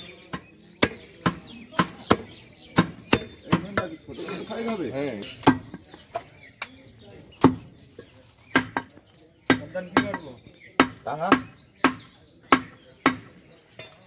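Heavy butcher's cleaver chopping beef on a wooden log chopping block: sharp, regular chops about two a second, with a short break about four seconds in.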